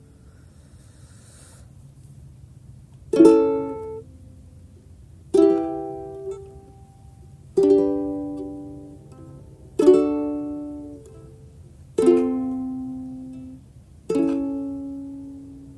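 Ukulele strummed in single chords, six strums about two seconds apart, each left to ring out and fade. The first three seconds hold only a low steady hum.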